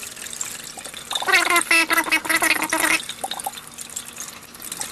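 Beef broth trickling out of a small drilled hole in an upturned metal can into a sink. A louder pitched sound, one steady note, comes in about a second in and lasts nearly two seconds.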